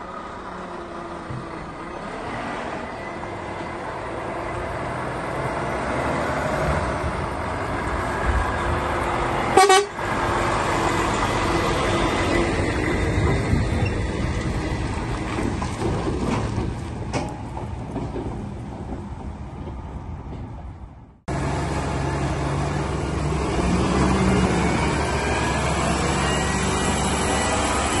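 Heavy lorry engine running and growing louder as the lorry approaches, with one short horn toot about ten seconds in. After a sudden cut about 21 seconds in, a tractor engine runs steadily.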